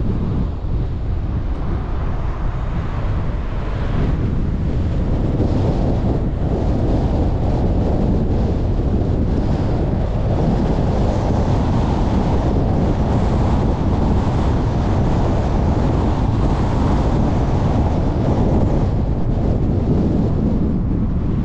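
Steady rumbling wind noise on the microphone, mixed with the road noise of a car driving.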